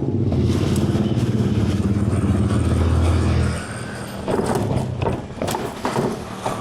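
Motor vehicle engine running on the move with a strong low rumble, which eases off about three and a half seconds in; a few sharp knocks follow near the end.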